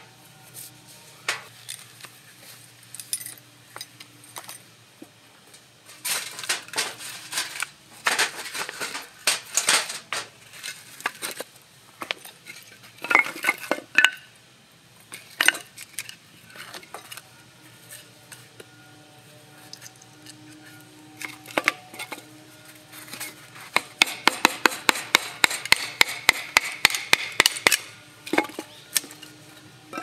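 Light metal clinks and clatter as the slotted stainless sheet of a Picogrill 398 fire pit is fitted into its frame, followed by wooden knocks from split kindling being handled. Near the end comes a quick, regular run of clicks, about five a second, for a few seconds.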